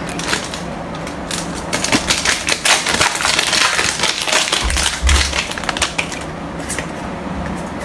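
Pokémon trading cards and a foil booster pack being handled close to the microphone: irregular rustling, crinkling and card clicks. A few dull low thumps come about five seconds in.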